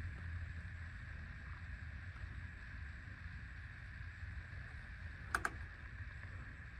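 Steady low hum and hiss of a running machine, with two sharp clicks in quick succession about five seconds in.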